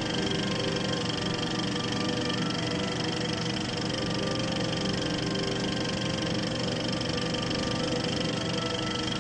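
A steady droning hum with hiss, unchanging throughout, with no blast or other sudden sound.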